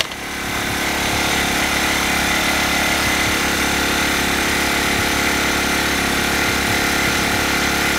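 Corded drill with a 3/4-inch spade bit running steadily as it bores into wood, together with the Ryobi RYi1000 inverter generator's engine running under the drill's load. The sound rises over the first second, then holds level.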